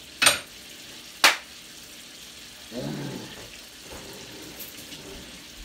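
Two sharp knocks of a kitchen utensil about a second apart, over the faint steady sizzle of steak frying in a skillet.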